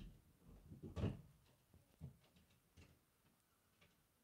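Near silence with a few faint, short knocks and taps of small objects being handled; the loudest comes about a second in.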